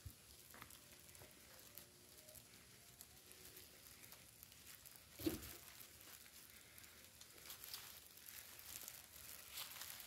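Faint crackling and rustling of dry bamboo leaf litter underfoot, with a single dull thump about halfway through.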